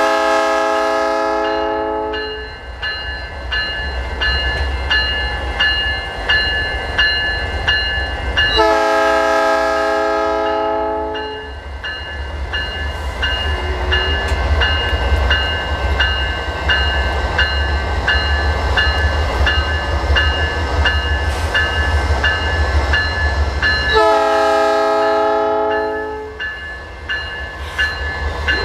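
Canadian Pacific diesel freight locomotive horn sounding three long blasts: one already sounding at the start and ending about two seconds in, one about ten seconds in, and one near twenty-five seconds. Under it, a General Signal Type 2 electronic crossing bell rings in a steady, even pulse, with the low rumble of the passing train.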